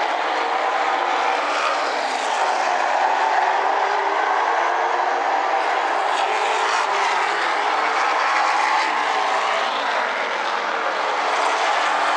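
Super late model stock cars' V8 racing engines running at speed around an asphalt oval. Many engines blend into one steady, dense drone.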